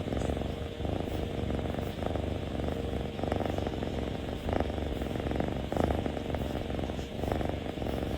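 A domestic cat purring steadily, the low purr swelling and easing in a slow, regular rhythm.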